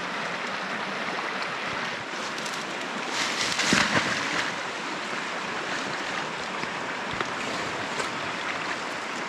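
Fast-flowing river rushing over a shallow riffle, a steady hiss of water, with a louder burst of noise lasting about a second around three seconds in.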